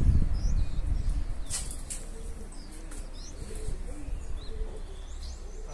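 Domestic pigeons cooing softly, a few short low coos, with small birds chirping faintly high above. A low wind rumble on the microphone fades out over the first second or so.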